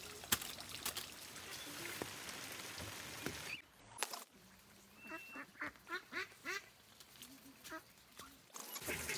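A long-handled spade strikes the soil with a sharp knock just after the start, amid scraping digging sounds. From about five seconds in, ducks quack in a run of about eight short calls.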